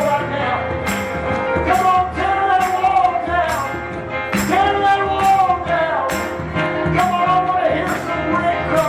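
Church worship music: a held, sliding melody line over a steady beat, with sharp tambourine-like strikes about every two-thirds of a second.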